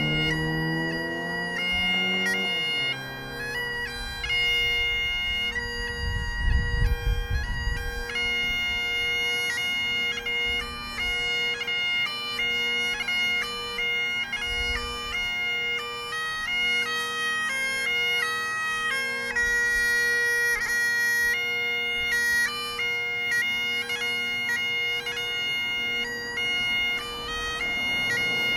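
Bagpipes playing a tune: a steady drone under the chanter's melody, which steps from note to note. For the first two seconds or so the lower tones are still sliding up into pitch.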